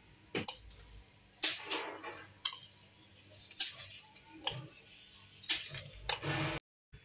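Metal spoon scraping and tapping against a glass bowl and a muffin tin as a crushed-biscuit crumb base is spooned into cupcake liners, in short separate strokes about once a second. The sound cuts off suddenly near the end.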